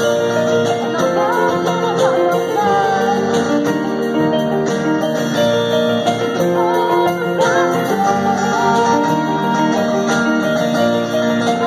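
Live band playing a song through amplifiers: electric guitars, keyboard and drums, with singing over them.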